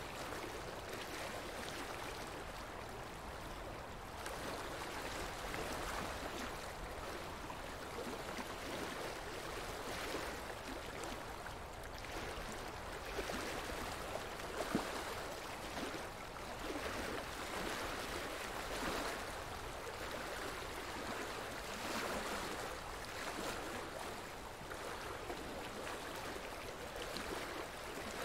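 Running water, a steady rush that swells and eases every couple of seconds.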